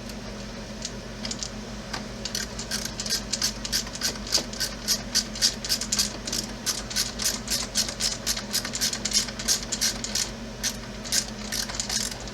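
A screwdriver driving a small screw into the RC truck, a quick run of short clicks about four or five a second that starts about two seconds in, over a steady low hum.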